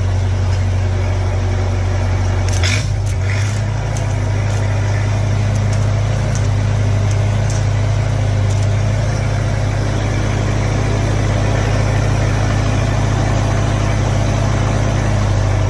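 Engine of an engine-driven welder running steadily. About three seconds in there is a short cluster of clicks and the engine note shifts briefly, around the idle control the owner has just repaired.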